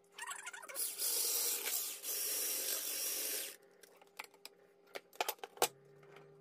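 Electric hand blender with a whisk attachment running in a plastic bowl of sugar, oil and milk, in two runs of about a second and a half each. A few sharp clicks follow as the whisk is set down.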